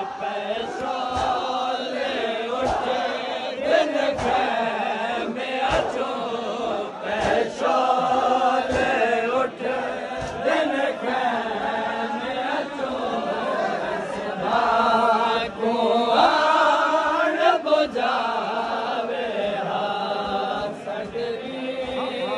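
A crowd of men chanting a Shia mourning lament (matmi vain), many voices layered together, with scattered sharp slaps through it.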